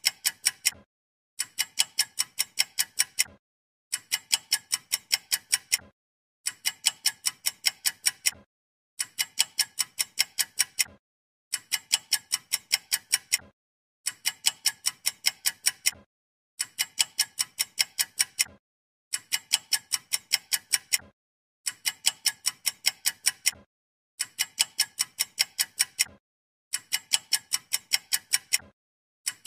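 A looped ticking track laid over the picture: bursts of about eight bright, ringing ticks at roughly four a second, each burst lasting about two seconds, repeating every two and a half seconds with short gaps of dead silence between.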